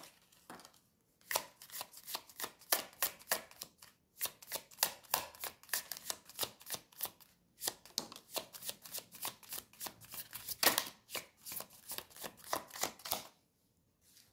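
Tarot deck being shuffled by hand: a rapid, steady run of card clicks, broken by two short pauses, that stops about a second before the end.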